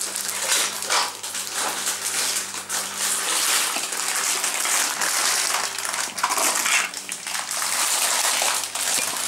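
Plastic bags of Lego Duplo bricks and track pieces crinkling and rustling as they are handled, with light clicks and clatter of the plastic pieces.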